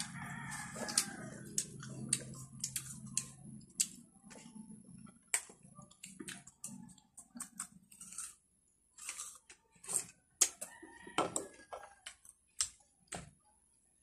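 Crisp bites and wet chewing of watery rose apple (tambis), heard as many short crunchy clicks. A rooster crows in the background near the start.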